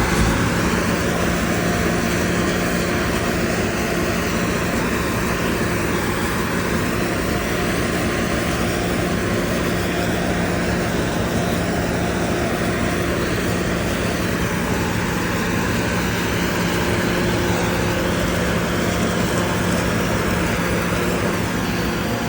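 John Deere combine harvester running steadily while harvesting rapeseed: a constant low engine hum under a dense mechanical noise, the tone of the noise slowly wavering as the machine moves.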